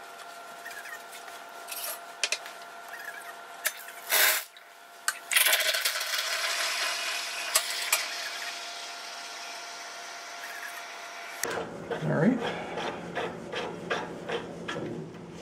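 Rancilio Silvia steam wand hissing as it steams milk in a stainless steel pitcher, after a short burst of steam about four seconds in; the hiss slowly fades and stops about two-thirds of the way through. Light knocks and clinks of the metal pitcher follow near the end.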